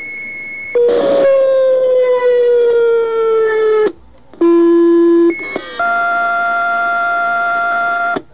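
Fire dispatch alert tones over a radio scanner: a series of steady paging tones at different pitches, each up to about three seconds long, with short gaps between them. The long tone about a second in sags slightly in pitch.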